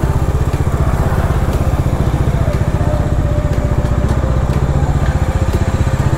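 Motorcycle engine running at low revs with a fast, even chug as the bike rolls slowly into a parking spot.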